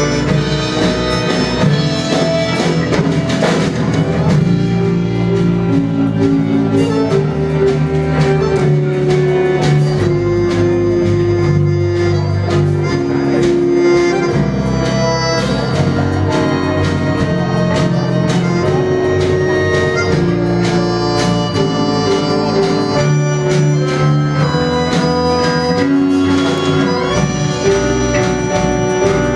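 A live quartet of accordion, keyboard piano, electric bass guitar and drum kit playing a tango. The accordion carries sustained melody notes over a steady drum beat.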